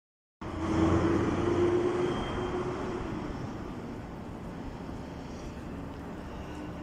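A steady mechanical drone with a humming tone, loudest in the first two seconds and then fading, over even outdoor background noise.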